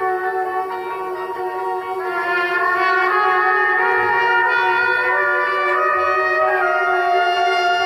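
Live band music: long held notes layered over a steady drone, swelling louder about two seconds in.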